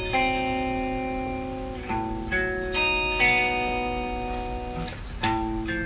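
Reverend Flatroc electric guitar played through a Skreddy Screwdriver overdrive pedal and amp: chords strummed and left to ring, a new chord struck every second or two, with a lightly driven edge.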